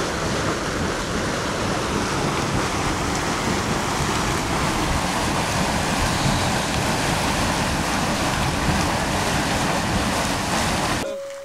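Volcanic steam vent (fumarole) hissing with a steady, continuous rush of escaping steam. It fades out near the end.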